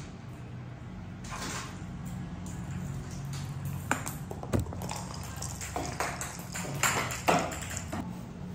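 A cat in a disposable diaper drags its hind legs across a tile floor, making repeated scuffs and rustles of the diaper against the tiles. A few sharp taps stand out, around the middle and near the end, over a steady low hum.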